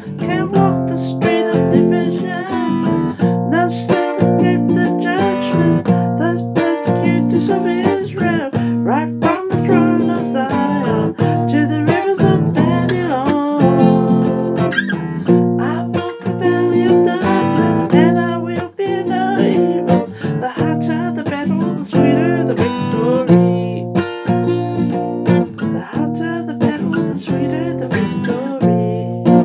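Acoustic guitar strummed with bare fingers, chords ringing continuously, with a woman singing along.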